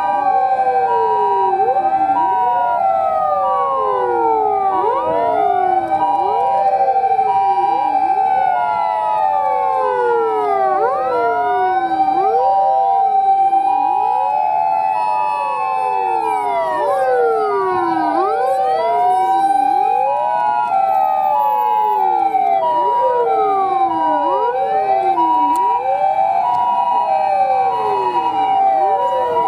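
Convoy of Japanese fire and emergency vehicles sounding sirens together: many overlapping wailing sirens rising and falling out of step, with an ambulance's two-tone hi-lo 'pee-po' siren alternating steadily throughout.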